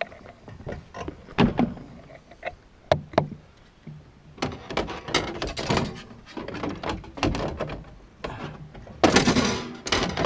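Irregular clicks, knocks and clatter of hands and channel-lock pliers working hose fittings onto a gold dredge's air compressor, with a louder rasping noise about a second long near the end.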